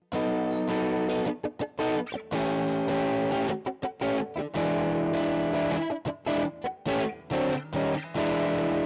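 Electric guitar played through a VOX StompLab IIG modelling pedal's overdriven 'Gain' amp model: distorted chords cut by many short, choppy stops, ending on a held, ringing chord near the end.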